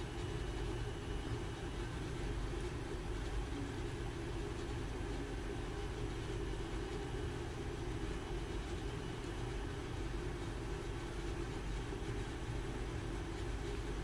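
Steady low background hum with no distinct events: room noise.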